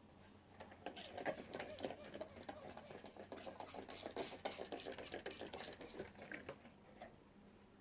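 Typing on a computer keyboard: a quick, uneven run of key clicks that starts just after the beginning and stops about a second before the end.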